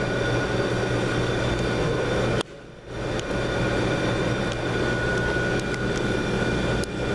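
Steady hum and rushing room noise under running ceiling fans, with faint steady tones; it briefly cuts out about two and a half seconds in.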